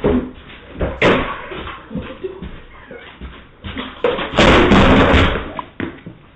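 Knocking and banging on a door, heard through a doorbell camera's microphone: a few separate blows, then a louder run of blows lasting about a second near the end.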